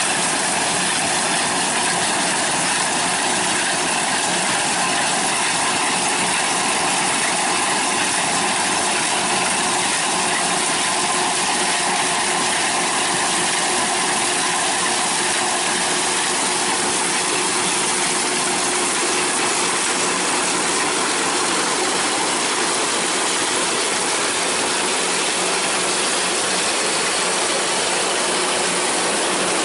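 A machine's motor and gears running steadily with a continuous mechanical whirring.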